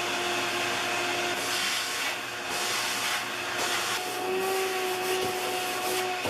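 Vacuum cleaner running with a steady motor whine, sucking up sanding dust, with repeated surges of hissing air as the nozzle moves. The whine shifts slightly in pitch about four seconds in.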